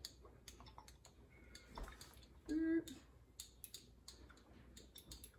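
Faint, scattered light clicks and taps as olive oil is poured from a bottle onto a stoneware baking pan, with a brief hum of a voice about two and a half seconds in.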